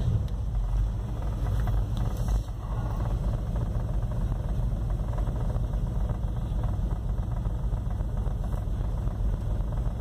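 Dodge 318 V8, converted to throttle-body fuel injection run by a Megasquirt MS2, idling steadily just after starting from cold, heard from inside the pickup's cab. It is running a little rich on the cold start.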